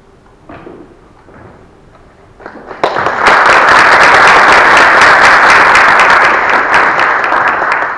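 Audience applauding: a large crowd's clapping breaks out about three seconds in, stays loud, and thins out near the end.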